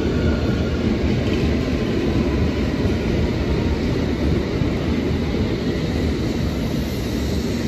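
London Underground Metropolitan line S8 Stock train running into the platform: a steady, loud rumble of wheels on rail with a faint steady whine above it, easing slightly towards the end.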